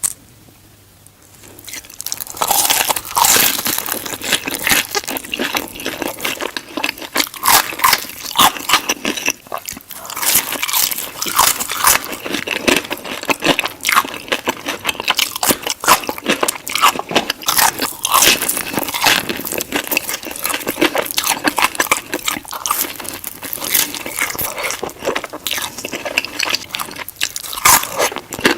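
Close-miked eating of crispy fried chicken: loud, crackly crunching bites and chewing that begin about two seconds in and go on densely and irregularly.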